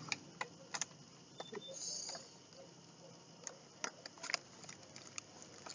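Scattered light clicks and taps with a brief rustle about two seconds in: a product box and its packaging being opened and handled.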